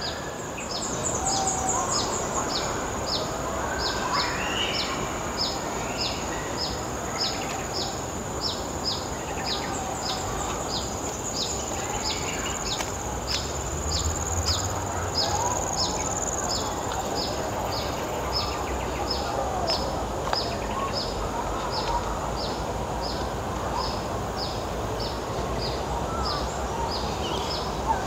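Outdoor park ambience: a bird repeats a short, high, falling chirp very regularly, about one and a half times a second. Under it run a steady high insect hum and a low background hum.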